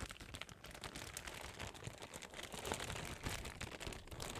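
Unboxing handling noise: packaging rustling and crinkling with irregular light clicks and taps as the parts are handled.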